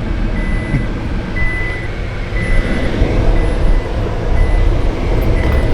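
Car engine and road rumble, steady and low, with a warning chime beeping about once a second over it.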